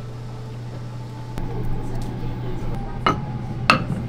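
Two sharp clinks of tableware, about half a second apart, roughly three seconds in, over a steady low hum.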